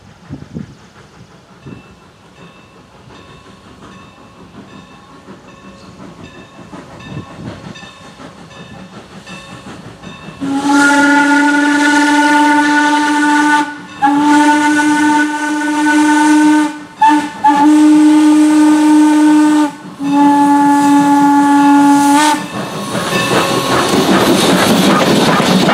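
Steam whistle of Norfolk and Western 4-8-0 No. 475 blowing a grade-crossing signal: long blasts broken by one short blast, starting about ten seconds in, after a faint bell ringing at an even pace. Near the end the locomotive passes close with a loud rush of steam and running gear.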